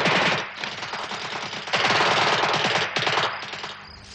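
Bursts of rapid automatic gunfire. A burst cuts off about half a second in, another runs from just under two seconds to about three, and a short one follows before the firing dies away.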